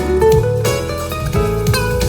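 Recorded guitar music with a strong bass line, played back through loudspeaker cabinets (a PS-15A speaker linked to an AJC-505 column speaker, with an AJC 15-700 subwoofer added) as a sound test.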